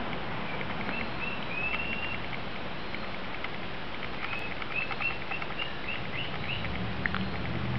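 Small birds chirping: short, clear, slightly arched chirps repeated in two runs, about a second in and again from about four to six and a half seconds, over a steady background hiss.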